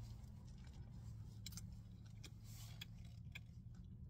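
Faint chewing of a mouthful of sausage and bread, with a few soft mouth clicks, over a low steady car hum.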